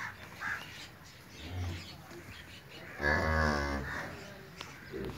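Holstein-Friesian cow mooing: a short, low call about one and a half seconds in, then a longer, louder moo about three seconds in.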